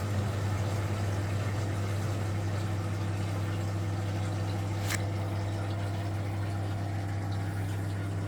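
Frigidaire Super Deluxe Automatic 50 washing machine's drain pump running with a steady hum, pumping water out of the drum after the fill. A single sharp click comes about five seconds in.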